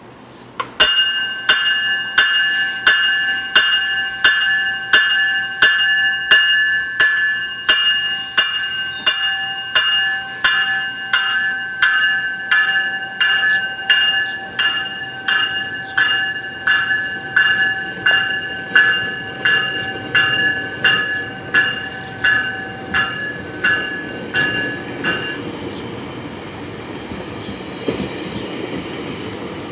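GO Transit commuter train's bell ringing in an even rhythm, about one and a half strikes a second, as the bilevel train rolls past. The bell stops about 25 seconds in, leaving the steady rumble of the coaches' wheels on the rails.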